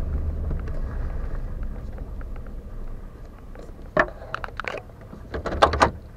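Truck engine and road noise heard inside the cab, dying away as the truck slows and the engine drops back to idle. Near the end come a few irregular sharp clicks and knocks.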